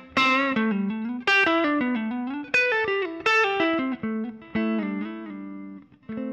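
Electric guitar with an overdriven amp tone, from a Neural Amp Modeler capture of an overdrive pedal and amp, playing a phrase of single picked notes. Several notes slide or bend in pitch, and the phrase ends on a held note that stops just before the end.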